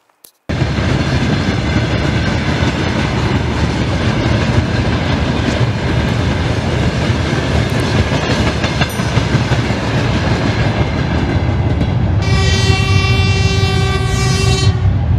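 A loud, steady rumbling noise starts abruptly, and a sustained horn-like tone sounds over it for about three seconds, starting about twelve seconds in.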